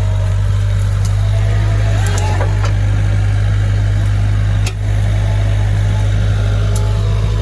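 Skid steer engine running steadily at a constant speed, with a brief sharp knock about two-thirds of the way through.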